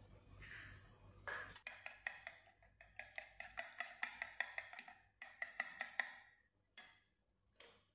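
Metal fork beating a raw egg on a ceramic plate: quick ringing clinks of the tines against the plate, about four or five a second, from a little over a second in until about six seconds in.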